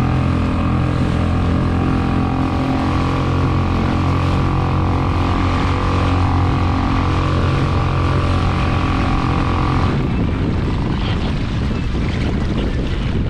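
A motorboat engine runs with a steady drone, then stops abruptly about ten seconds in, leaving a steady rushing noise of wind and water.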